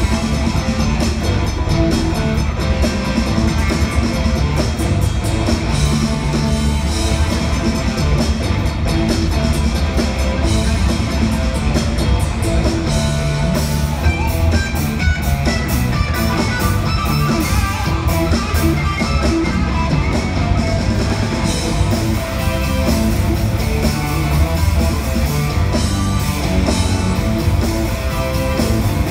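Rock band playing live: electric guitars, keyboards and drum kit together at full volume through a concert sound system.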